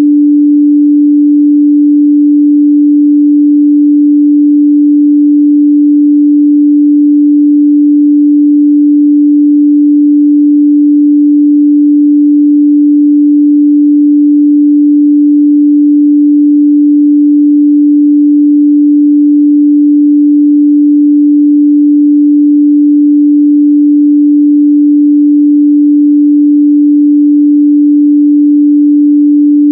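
A steady, loud 293 Hz sine-wave test tone, a single pure midrange pitch held without change, used to check speaker and headphone response.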